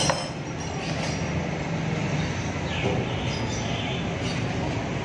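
An old car's engine idling through a newly fitted aftermarket racing muffler: a steady low exhaust rumble.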